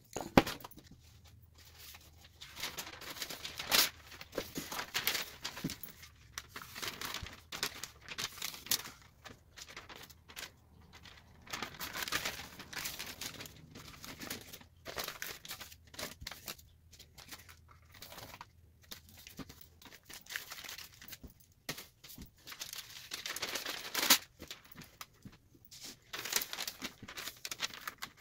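A crumpled sheet crinkling and rustling in short, irregular bursts as it is pressed onto wet spray paint and lifted off to stamp a rock-like coral texture.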